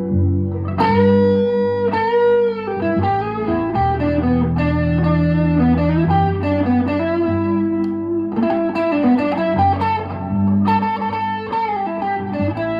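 Electric guitar playing ringing chords and single-note melodic lines, chords struck several times and left to sustain.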